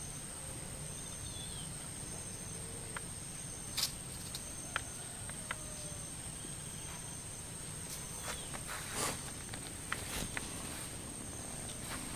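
Quiet outdoor ambience: a steady high-pitched insect drone, with scattered light clicks.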